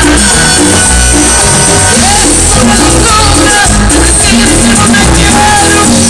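Live cumbia band playing loud through a stage sound system, with a steady, repeating bass beat.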